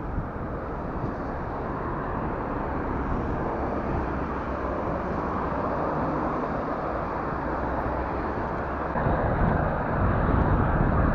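Steady rush of wind and road noise from a bicycle being ridden along a road, louder from about nine seconds in.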